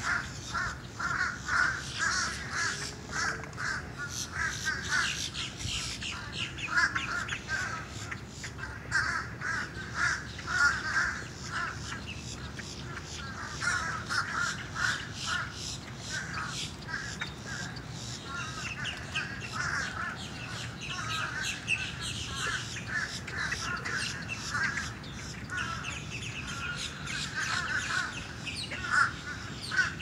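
Many birds calling at once: a dense, unbroken chorus of short repeated calls with no pause.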